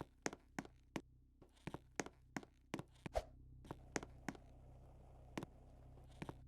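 Faint sharp clicks, about three a second, thinning out after about three seconds, over a steady low hum.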